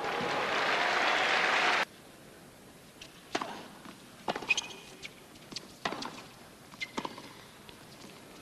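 Crowd applause that cuts off abruptly after about two seconds. A tennis rally follows, the racket striking the ball with sharp pops about every second or so.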